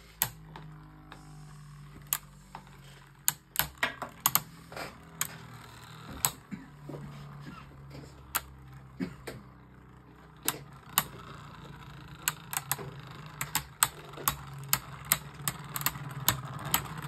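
Two Beyblade Burst Wyvron spinning tops battling in a plastic stadium: a steady whirring hum from the spinning tops, with irregular sharp clacks each time they collide.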